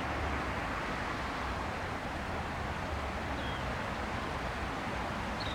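Twin Rolls-Royce AE3007 turbofan engines of an Embraer ERJ-145LR running, heard as a steady, even rushing noise with a low rumble and no distinct whine.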